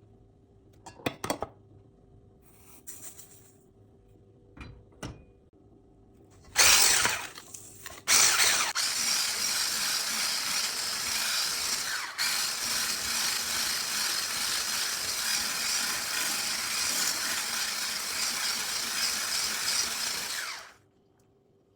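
A few light knocks and clatters, then an electric kitchen mixer starts about eight seconds in, runs steadily for about twelve seconds and cuts off near the end.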